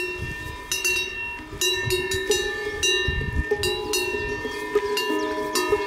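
A cow's bell clanking irregularly as the cow grazes, about one to two clangs a second, each ringing on briefly with a metallic clang.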